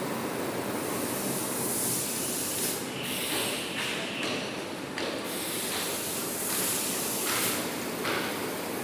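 Toilet paper converting line running: a steady machine din, with short hissing bursts repeating about once or twice a second from about three seconds in.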